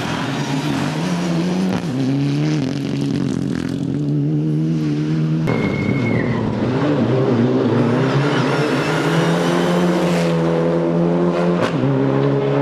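Mitsubishi Lancer Evo 9 rally car's turbocharged four-cylinder engine revving hard through the gears as it passes, the pitch climbing and dropping with each shift, in several short clips joined together. A brief high whistle sounds about halfway through.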